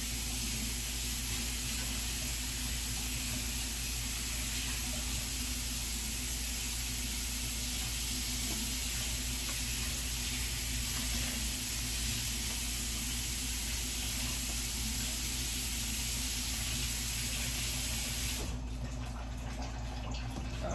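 Kitchen tap water running steadily into a sink, then shut off near the end, over a steady low electrical hum.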